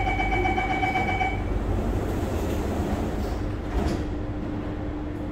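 Door-closing warning tone of an SMRT C830C train, a steady beep that stops after about a second and a half. The sliding doors thud shut near four seconds in, and a steady low hum follows over the train's rumble.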